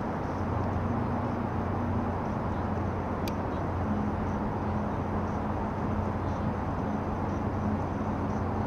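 Steady city background: a continuous low rumble of distant traffic with a faint steady hum under it, and a single short click about three seconds in.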